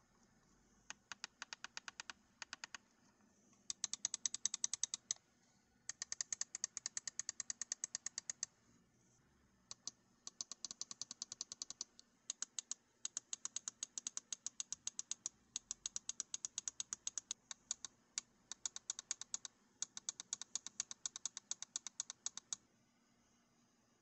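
ROCCAT Burst Pro Air gaming mouse's rubberized scroll wheel being rolled, ticking through its notches in rapid runs of clicks with short pauses between them. The ticking stops shortly before the end.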